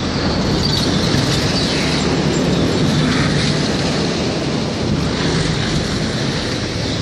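Road traffic passing over the bridge: a steady rumbling noise with no single vehicle standing out.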